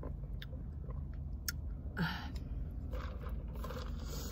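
Small close-up drinking and handling sounds from sipping through a straw from a fountain-drink cup: scattered light clicks and a short scraping rustle about two seconds in, over a low steady hum.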